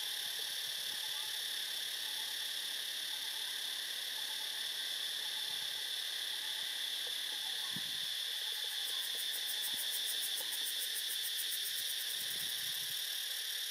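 Steady, high-pitched drone of an insect chorus, with a fast pulsing trill joining very high up in the second half.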